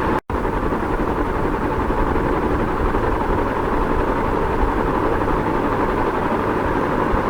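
Ceiling fan running steadily: an even rush of noise that stays constant, broken once by a brief cut to silence about a quarter second in.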